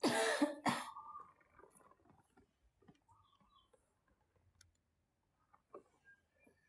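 Two loud, harsh bursts of breath from a girl, one long and one short, in the first second. After them come only faint clicks and small soft sounds.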